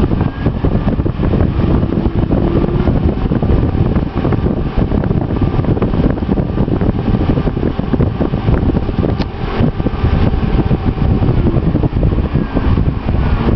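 Siemens Hengstler servo motor spinning fast with a contact tachometer's rubber tip pressed against its shaft: a steady, rough whirring with faint whining tones above it.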